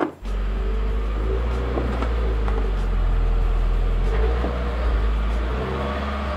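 Subaru WRX 2.0-litre turbocharged flat-four idling steadily through its stock axle-back mufflers, a low even exhaust hum.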